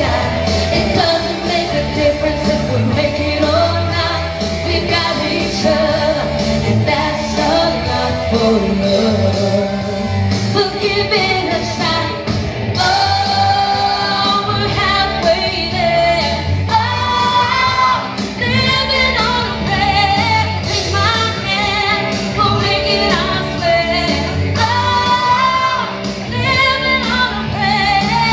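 A woman singing into a handheld microphone, amplified over loud backing music with a steady beat, as in karaoke.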